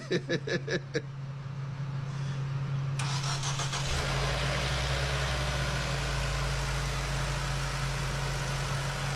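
Car engine jump-started on a dead battery: it is cranked about three seconds in, catches within a second and then runs at a steady idle. A steady low hum runs underneath.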